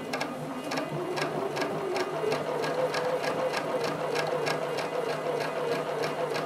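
Bernina domestic sewing machine running steadily while free-motion quilting: a motor hum with a rapid, even ticking of the needle strokes.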